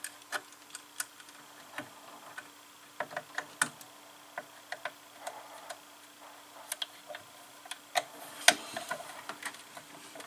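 Irregular light clicks and ticks of a small screwdriver working a screw terminal on a CNC controller board, tightening a wire into the e-stop input.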